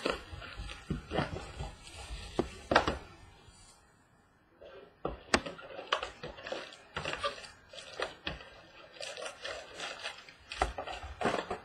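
Hands handling and opening a cardboard trading-card box on a tabletop: scattered taps, knocks and rustles of the box and its lid, with a brief silence about four seconds in.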